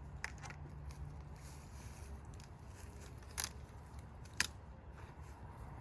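A few sharp clicks and snaps from handling the parts of a PEX pixel ornament, the loudest about four seconds in, over a steady low rumble.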